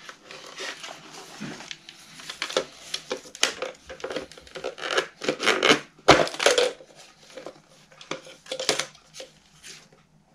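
Plastic clicks, scraping and rubbing from a VW T4 door mirror assembly being handled and worked on by hand, with irregular knocks, the loudest about six seconds in.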